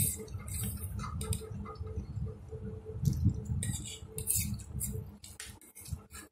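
Plastic forks and spoons clicking and scraping against paper plates while noodles are eaten: an irregular run of sharp ticks, with some noodle slurping.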